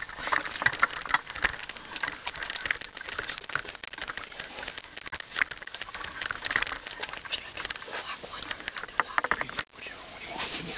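Handling noise from a video camera being set up: a rapid, irregular run of clicks, bumps and rubbing rustles. It cuts out for a moment about nine and a half seconds in.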